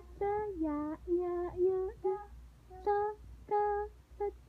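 A toddler singing a simple tune in about eight short, high, evenly held notes.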